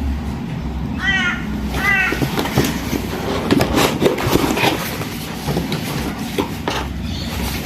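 Packaging being handled, with rustling and many small clicks and knocks, over a steady low hum. Two short high calls come about a second and two seconds in.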